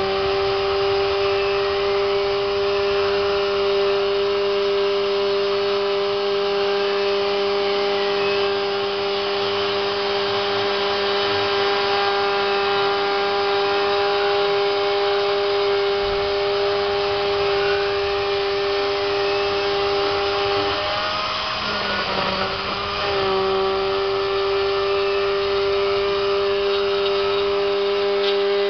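Hobby CNC router machining PVC: the spindle and drive motors run with a steady whine and fainter whines that rise and fall as the axes move. About 21 seconds in the main tone drops out for a couple of seconds, then picks up again.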